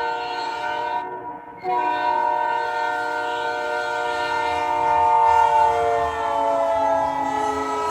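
Locomotive multi-chime air horn sounding a steady chord, broken off briefly about a second in, then blown again. Later its pitch slides down as the train goes by, over a growing low rumble of the passing train.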